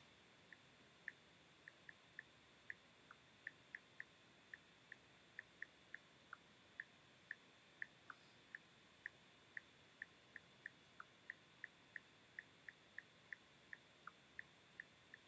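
Near silence with a run of faint, light clicks, two or three a second and unevenly spaced, over a steady faint high-pitched electrical whine.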